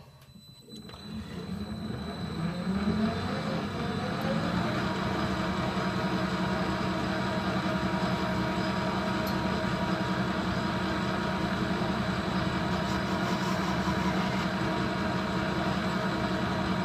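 Metal lathe starting up: the spindle drive's pitch rises as it comes up to speed over the first few seconds, then it runs steadily with a hum and a high whine.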